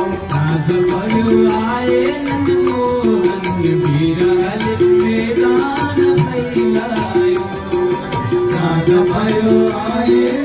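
Instrumental interlude of a Nepali devotional bhajan: tabla and rattling percussion keeping the beat under a melodic line, with a short note repeating steadily throughout.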